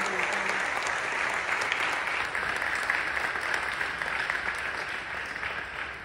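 Audience applauding: many hands clapping together, steady at first and slowly dying down toward the end.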